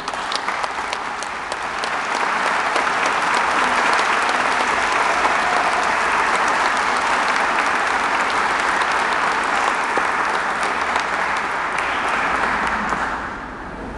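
Audience applauding, building up about two seconds in and dying away near the end.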